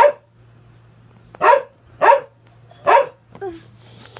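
Four short barks: one at the start, then three more between about one and a half and three seconds in, followed by a fainter yelp.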